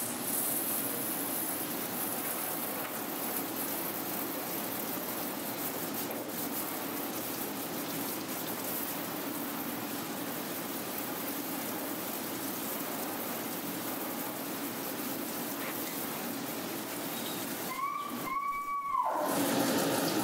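Water spraying steadily from a grooming-tub hose sprayer onto a wet dog and the stainless steel tub. Near the end the spray stops briefly, and a short high-pitched tone is heard in the gap.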